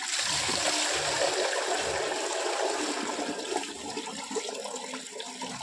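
Water poured from a bucket into a large steel cooking pot, a steady splashing pour that slowly eases off toward the end.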